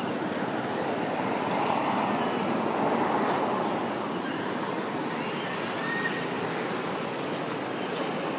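Steady outdoor background rushing noise, with a short faint chirp about six seconds in.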